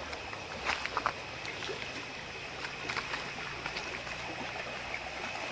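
Forest stream flowing over and between rocks, a steady rush of water with a few brief sharper splashes, the loudest about a second in.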